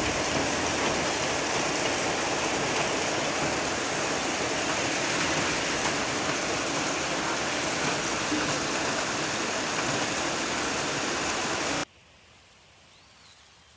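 Heavy rain falling in a steady, dense hiss. It cuts off abruptly near the end, leaving only a faint hiss.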